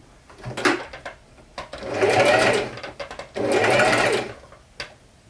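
Singer electric sewing machine stitching in two short runs of about a second each, its motor speeding up and slowing down. There is a single click about half a second in.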